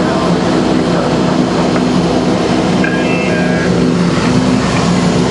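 Cabin noise of a Cessna Silver Eagle turboprop in flight: the engine and propeller make a steady drone with a low hum of several held tones.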